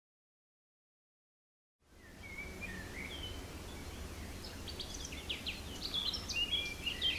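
Dead silence for about two seconds, then outdoor ambience fades in with a low steady rumble and birds chirping, the short high chirps coming thicker toward the end.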